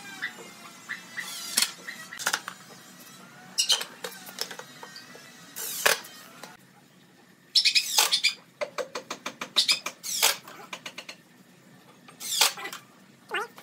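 Cordless impact driver driving screws into a wooden bed frame through metal hinge plates, in several short bursts of rapid hammering, with a longer run of bursts about eight seconds in.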